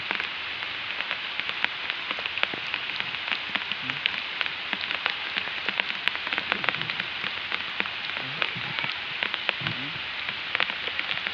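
Steady hiss of water or rain, full of small rapid ticks, with faint voices now and then.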